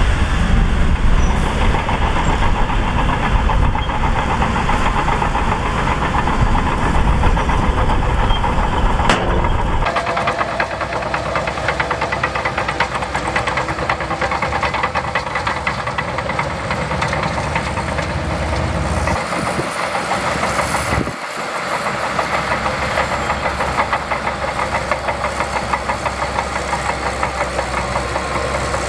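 Shantui DH17C2 bulldozer's diesel engine running at work, with a fast even pulse. The sound changes abruptly about a third of the way through and again about two-thirds of the way through.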